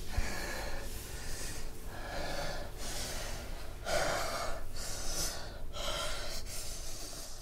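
A person's heavy, gasping breaths, about one a second.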